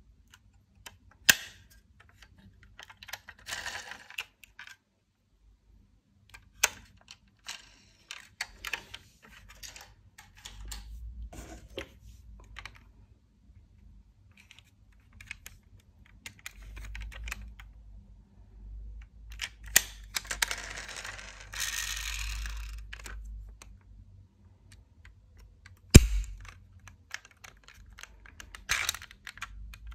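Diecast toy cars being handled: scattered clicks and clacks of small hard parts knocking together, with two stretches of rustling. The loudest click comes about four seconds before the end.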